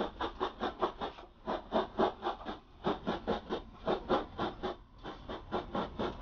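Rapid rhythmic scratching strokes, about five a second, with two short breaks.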